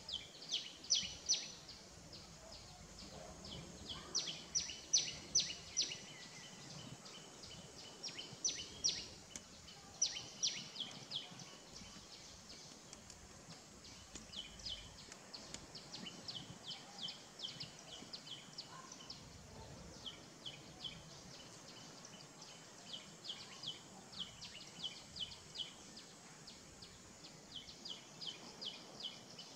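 A bird calling in runs of short, high chirps, about three or four a second. The runs recur every few seconds, louder in the first half, over a faint outdoor background hiss.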